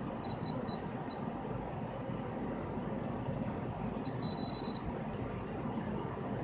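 Multimeter continuity beeper sounding as the probes touch the flex-cable pins: a few short high beeps about a second in, then one longer beep of about half a second around four seconds in. Each beep signals that the probes have closed a circuit, over a steady background hiss.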